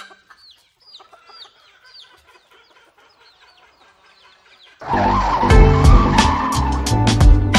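Faint, quick high bird chirps, each a short falling note repeating a few times a second; then about five seconds in, loud music with a heavy beat and bass starts abruptly.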